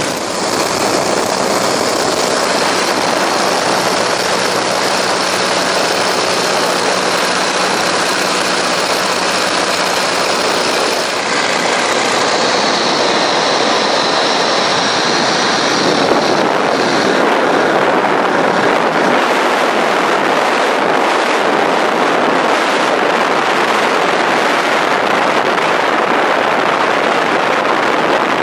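Propeller aircraft engine running steadily under a loud, constant rushing noise, with no breaks.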